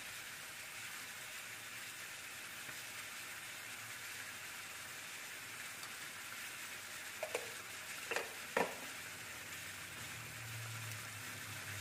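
Chicken pieces and potato chunks sautéing in oil and margarine in a wok: a steady, gentle frying sizzle. A few light clicks come between about seven and nine seconds in.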